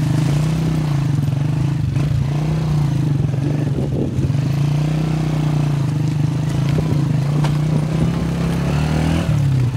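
A vehicle engine running at a steady, slightly wavering pitch, with rattling and clatter from travelling over rough stony ground. The engine note dips briefly near the end.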